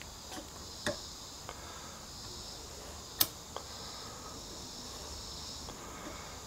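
Piston rings being worked by hand into a piston's ring grooves: a few light metallic clicks and snaps, the sharpest about three seconds in. A faint steady high hiss sits under them.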